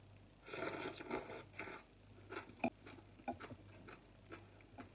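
A person slurping a mouthful of glass noodles for about a second, starting about half a second in, then chewing them with a series of short wet mouth clicks.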